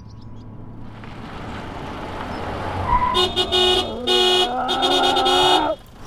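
A car horn honking: a couple of short blasts about three seconds in, then longer held blasts that cut off suddenly near the end. Vehicle noise grows louder underneath.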